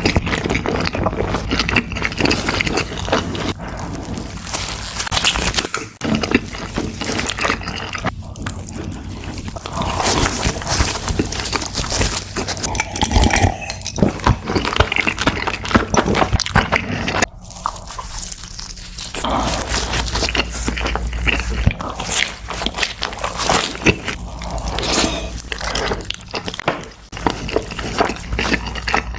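Close-miked eating: biting and chewing food, with crackly crunching and wet mouth sounds in quick, irregular clicks.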